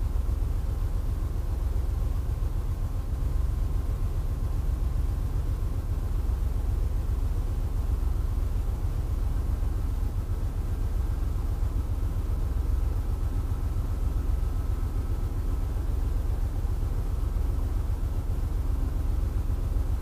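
Steady low rumble of an idling engine, unchanging throughout, with faint steady tones above it.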